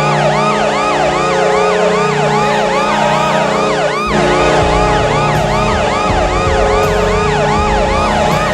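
Fan-made Washington Capitals hockey goal horn: a steady low horn blast layered with a fast yelping siren that sweeps up and down about two and a half times a second. The low end turns pulsing about halfway through.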